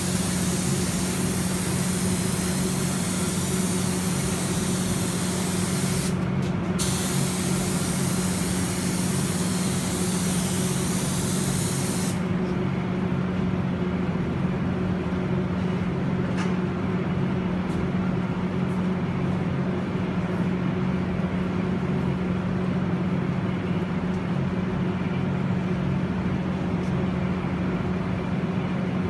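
Spray gun hissing as activator is sprayed over the hydrographic film floating on the dip tank; the spray breaks off briefly about six seconds in and stops about twelve seconds in. A steady low hum runs underneath.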